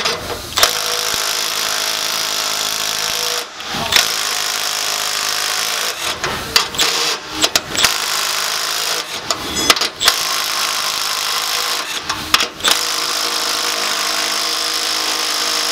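A Milwaukee 3/8-inch right angle impact wrench hammers at bolts torqued to 120 foot-pounds. It runs in about five long bursts of a few seconds each, with short pauses as it moves from bolt to bolt. It struggles but breaks them loose.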